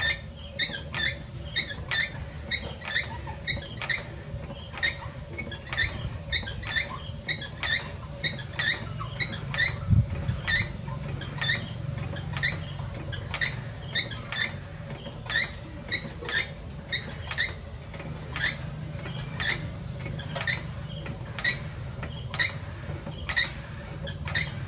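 Potter's wheel running with a low hum and a short high squeak repeating about twice a second, once per turn of the spinning wheel head. One louder knock about ten seconds in.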